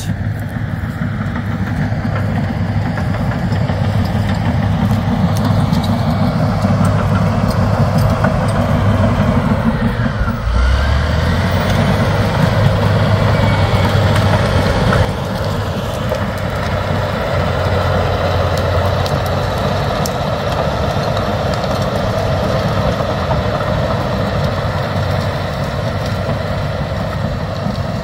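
Diesel engine of a large 200 hp crawler bulldozer running steadily under load as it pushes through brush, dropping a little in level about fifteen seconds in.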